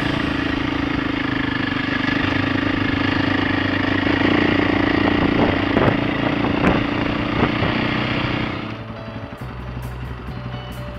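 KTM 450 single-cylinder four-stroke enduro bike running under steady throttle, with a few sharp knocks near the middle. About nine seconds in the throttle closes and the engine drops to a low, quieter burble as the bike rolls down a bank.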